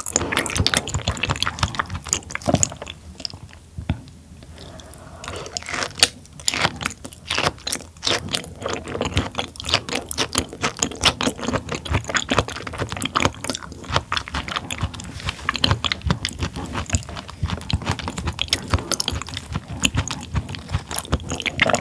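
Close-up wet chewing of raw tuna sashimi: a dense, continuous run of small smacking mouth clicks, with a short quieter lull a few seconds in.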